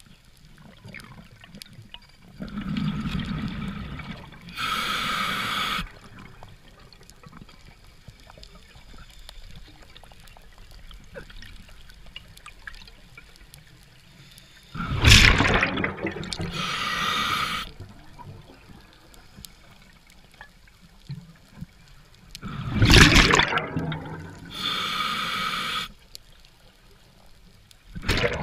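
Scuba diver breathing through a regulator underwater: a bubbling exhale followed by a hissing inhale through the regulator, three times over, with a long quiet gap of about nine seconds after the first breath. The exhaled bubbles are the loudest sounds, about halfway through and about three-quarters through.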